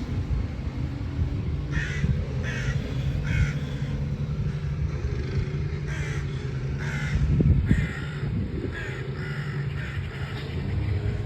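A flock of crows cawing over and over, a dozen or so short harsh calls from several birds, mobbing a lone crow hiding at the foot of a tree. A steady low rumble runs underneath.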